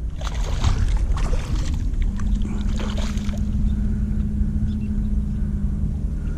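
Water splashing and sloshing at the kayak while a hooked fish is fought, over a constant low rumble, with a steady low hum setting in about two seconds in.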